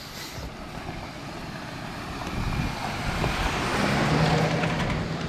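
A motor vehicle drives by, its engine and road noise building to a peak about four seconds in, with a steady low engine hum at the loudest point.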